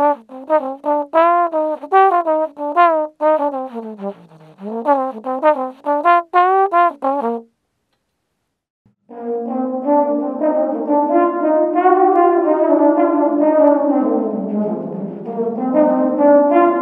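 Trombone playing a short melodic phrase in an anechoic chamber with no reverberation, each note stopping dead. After a pause of about a second and a half, it plays a phrase in a reverberant room, where the notes ring on and run into one another.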